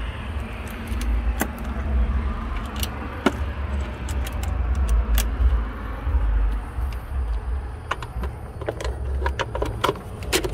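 Steel sockets clinking and clicking in a plastic socket-set case as a socket is picked out and fitted onto a hand-held power tool, with a cluster of sharper clicks near the end. A low, uneven rumble runs underneath.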